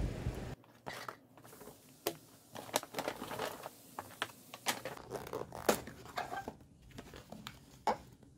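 Brief street noise cut off suddenly, then a paper takeout bag and cardboard food boxes being handled and opened on a table: a string of crinkles, scrapes and taps.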